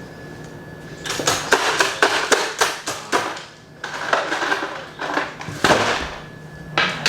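A run of clatter and rustling: quick knocks and scrapes, most of them between about one and three seconds in and again near the end, over a faint steady hum.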